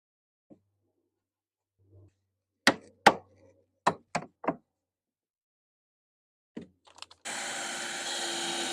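Five sharp knocks of wood pieces being tapped and set into place, then a power drill running steadily near the end, driving a screw into pallet wood.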